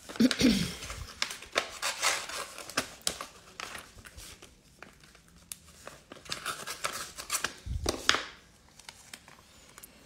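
Crinkling and rustling of glossy sticker sheets and their packaging being handled and sorted, in uneven spurts with small clicks and a couple of soft knocks.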